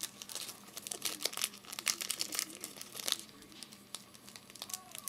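Trading card pack wrapper being torn open and crinkled by hand: irregular crackling rustles throughout.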